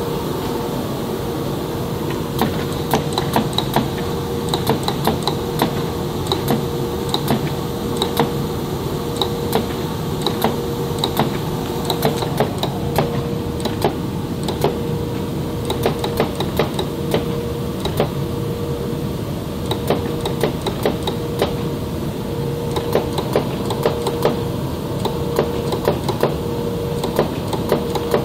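Gerber computerized flatbed cutting table running: a steady machine hum with a constant tone, overlaid by frequent irregular sharp clicks and taps as the cutting head works across the material.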